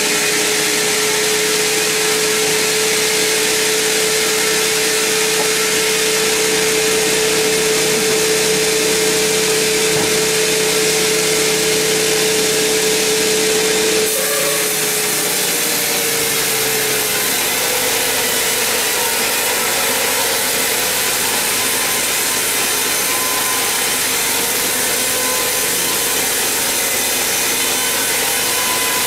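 Large band sawmill blade cutting lengthwise through a big mahogany log: a steady, loud sawing noise over the machine's steady hum. The hum changes abruptly about halfway through and settles slightly lower.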